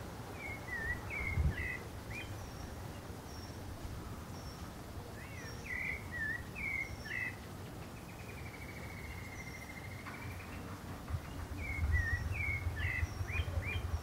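Pale-breasted thrush singing: three short phrases of quick, varied whistled notes, each lasting about two seconds, near the start, in the middle and near the end. A faint high chirp repeats about once a second, a short buzzy trill fills the pause before the last phrase, and a low rumble grows louder near the end.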